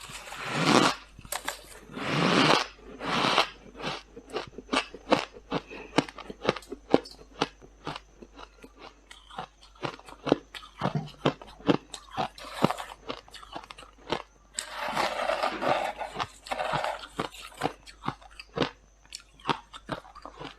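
Freezer frost being bitten and chewed close to the microphone. A few longer crunching bites come near the start and again just past the middle, with many quick, sharp crunches of chewing in between.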